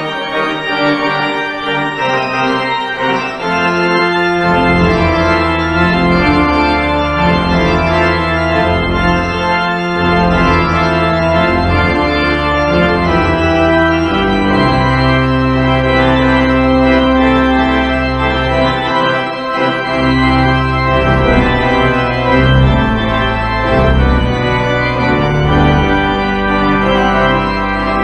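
Organ playing sustained full chords, with deep bass pedal notes coming in about four seconds in and the harmony moving every second or two.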